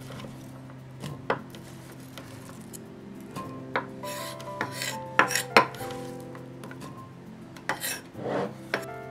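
Kitchen knife dicing onion on a wooden cutting board: a few sharp knocks of the blade on the board, the loudest about halfway through, and two brief scrapes as the knife sweeps the pieces together.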